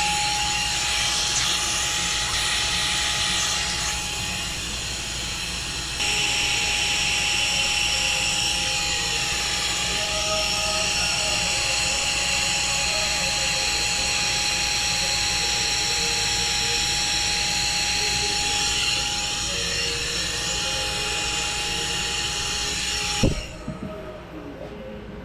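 Small cordless vacuum motor running with a steady high whine and rushing air, louder from about six seconds in. Near the end it is switched off, and the whine falls in pitch as the motor spins down.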